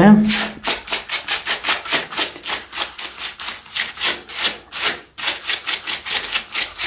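A gloved hand rubbing and scraping loose, crumbling plaster off the corner of a wall ledge in quick strokes, about three or four a second, with a brief pause about five seconds in.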